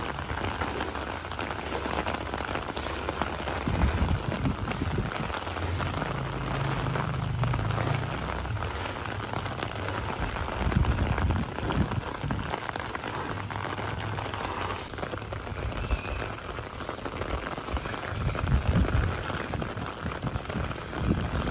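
Steady rain falling on a flooded concrete rooftop, an even hiss of drops on standing water, with irregular low rumbles now and then.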